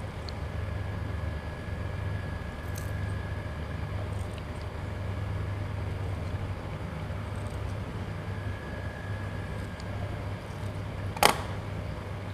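Steady low background hum with a few faint ticks of handling, and one sharp click about eleven seconds in.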